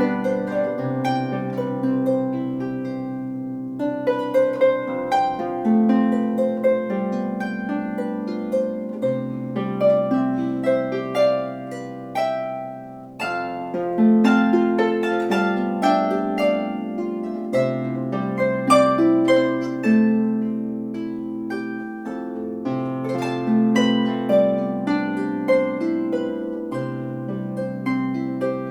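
A 34-string Celtic lever harp played solo: a melody of plucked notes over ringing bass notes that change every few seconds, with a short drop in loudness about halfway through.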